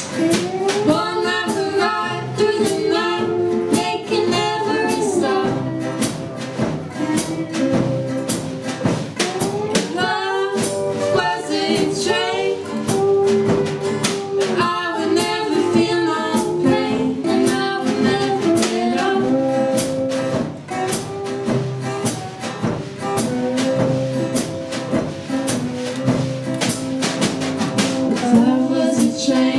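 Small live band playing a song: two acoustic guitars, an acoustic bass guitar and a drum kit keep a steady beat under sung vocals.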